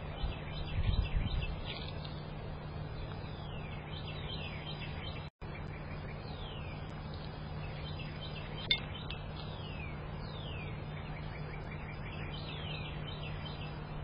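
Small birds calling in the background: high, downward-slurred whistles repeated every few seconds, each run with quick chipping notes, over a steady low hum. A short low rumble comes about a second in and a single sharp click a little past halfway.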